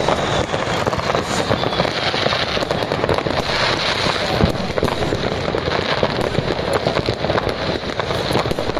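Many fireworks going off at once: a dense, unbroken crackle of rockets bursting and firecrackers popping, with no pause.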